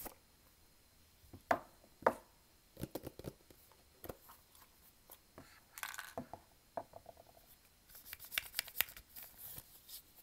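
Hands handling the cardboard and paper parts of an iPhone 8 box: scattered taps and knocks, then dense, crisp paper rustling and scratching for about the last two seconds.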